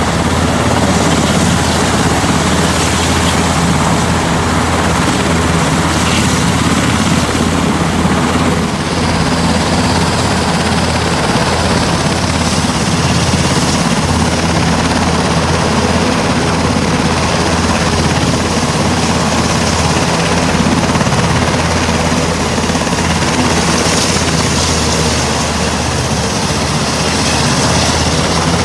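Sikorsky S-92 helicopter on the ground with its main rotor turning and its twin turboshaft engines running: a loud, steady rotor beat with turbine noise above it.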